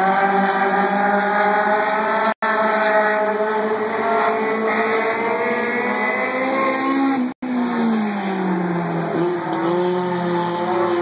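Several dirt-track stock car engines running hard together, their pitches rising and falling as the cars circle the oval. Shortly after the second of two brief dropouts in the sound, one engine falls in pitch.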